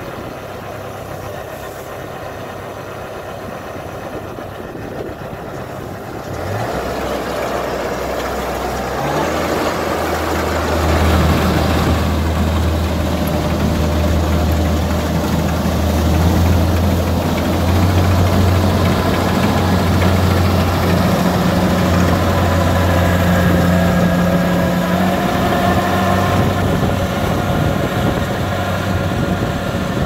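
Kubota DC60 combine harvester's diesel engine running, first at a lower steady speed. About six seconds in it revs up, and by about ten seconds it is louder, holding steady as the machine drives through and harvests lodged rice.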